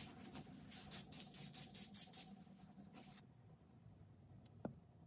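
Aerosol spray paint hissing in a quick run of about six short bursts through a bee stencil laid on a plywood top, then one more short burst.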